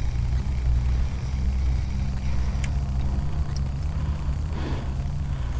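A steady low engine-like hum, as from motor traffic or an idling vehicle.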